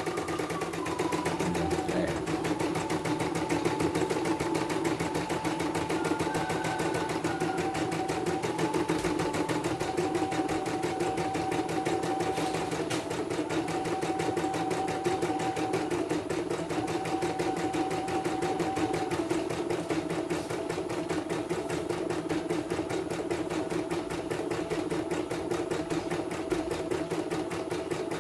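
CNY portable embroidery machine stitching a design at steady speed, its needle going in a fast, even rhythm. This is a test run of the machine after servicing.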